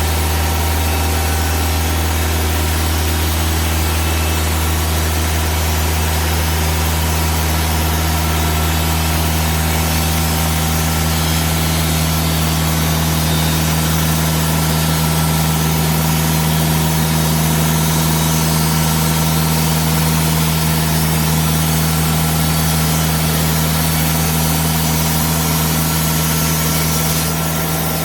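TimberKing 2000 band sawmill running steadily, a constant engine drone with a steady hum, dipping slightly just before the end.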